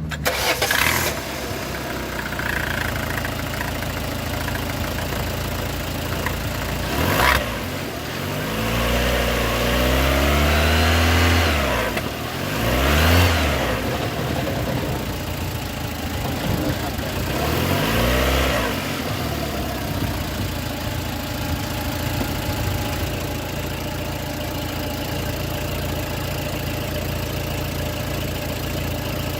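Citroën C4 1.6i four-cylinder petrol engine idling steadily, now running on a new ignition coil fitted in place of a faulty one. It is revved three times in the middle: one longer rise held for a few seconds, then two short blips, each falling back to idle.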